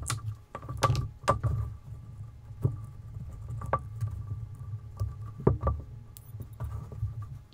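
Irregular clicks and light taps from small parts being handled on a tabletop: wire leads and plug connectors being fitted together by hand, with a low handling rumble underneath.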